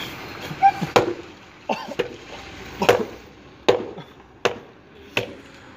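A sneaker being whacked against a wooden plank fence, about six sharp knocks just under a second apart, to knock poop off its sole.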